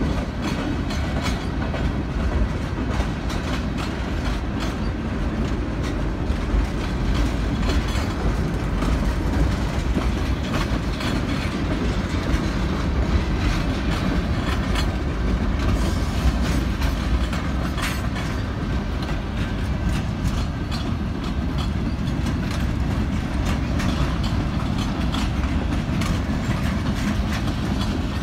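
Freight train tank cars rolling past: a steady rumble of steel wheels on the rails with frequent clicks and clacks as the wheels cross rail joints.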